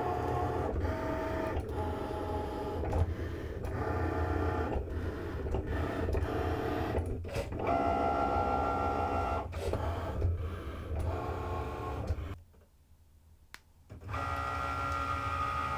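Cricut Maker cutting machine cutting paper: its carriage and roller motors whir in short runs that stop, start and change pitch as the blade moves around the cut lines. The machine goes almost silent for about a second and a half near the end, then a steady whine picks up again.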